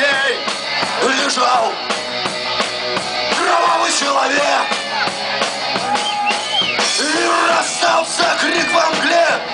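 Live punk rock band playing a loud song: drum kit and amplified instruments under a male lead vocal sung into the microphone.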